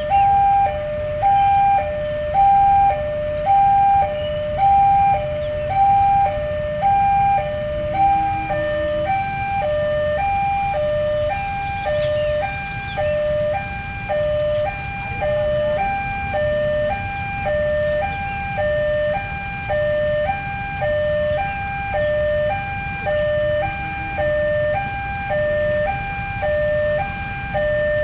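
Railway level-crossing warning alarm sounding: an electronic two-tone signal that alternates between a high and a low note about once a second, warning that a train is coming. A low, steady rumble runs beneath it.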